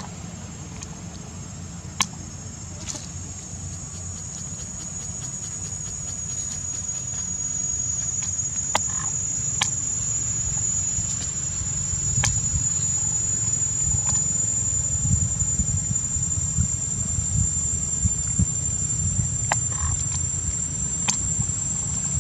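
Steady high-pitched drone of insects, with a low rumble underneath that grows louder partway through and a few sharp clicks here and there.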